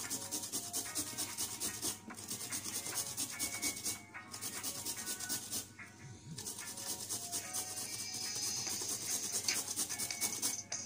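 Carrot being grated on a metal box grater: rapid rasping strokes, with brief pauses every couple of seconds.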